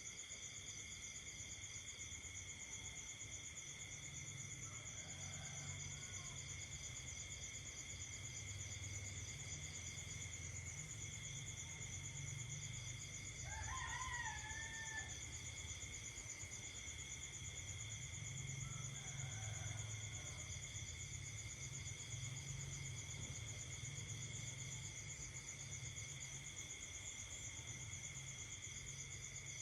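Night insects, crickets among them, trilling steadily at several pitches at once, some in pulsed runs that come and go. About halfway through a single louder call from another animal rises and then holds for about a second and a half, with two fainter calls of the same kind before and after it.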